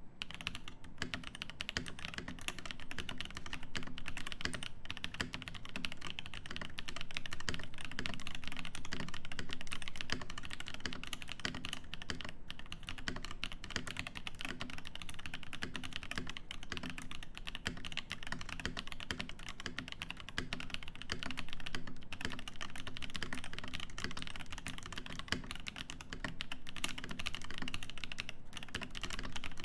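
Continuous fast typing on a Cyberboard mechanical keyboard with lubed Feker Holy Panda tactile switches, a polycarbonate plate and GMK keycaps: a dense, unbroken stream of key clacks.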